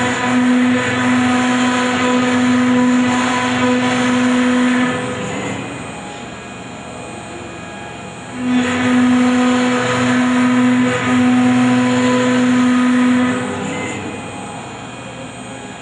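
CNC router spindle running with a V-bit engraving into a wood board: a steady machine whine with a cutting noise. It is loud for about five seconds, drops quieter for a few seconds, then is loud again for another five seconds before easing off near the end.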